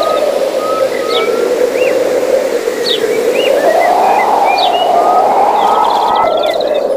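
Forest ambience track of small birds chirping in short rising and falling notes over a loud rushing noise that slowly swells and fades, looping about every six seconds.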